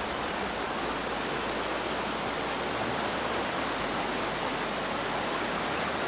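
Stream water rushing steadily down narrow rock chutes and small cascades, a constant even roar of falling water.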